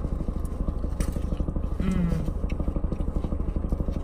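Car engine idling, heard from inside the cabin as a steady, fast-pulsing low rumble. A brief "mm" hum comes about two seconds in.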